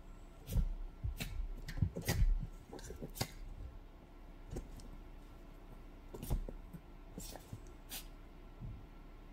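Scattered rustles, light taps and soft thumps of a toy poodle moving about on a sofa while a hand handles a plush toy, busiest in the first few seconds with a few more near the end.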